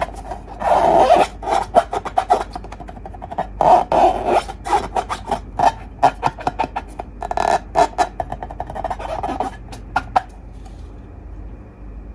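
Close-up handling of slime and balloons: rapid sticky clicks and pops with rubbing, scraping stretches, stopping about ten seconds in.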